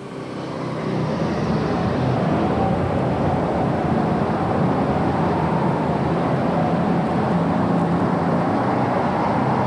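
Turbocharged super stock pulling tractor engine running at full throttle under load as it drags the sled. The sound swells over the first second, then holds steady and loud.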